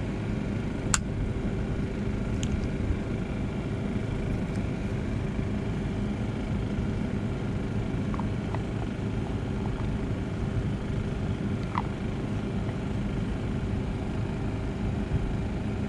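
Steady engine-like drone, with a few light clicks of plastic shower-sprayer parts being handled.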